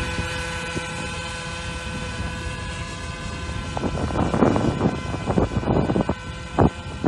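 Enya 40 two-stroke glow engine and propeller of a radio-controlled autogyro running steadily in flight, holding an even pitch. From about four seconds in, gusts of wind buffet the microphone.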